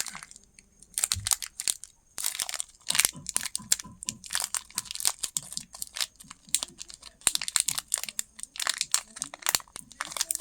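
Candy wrappers crinkling and tearing, mixed with candy crunching, in quick irregular crackles with a short pause near the start.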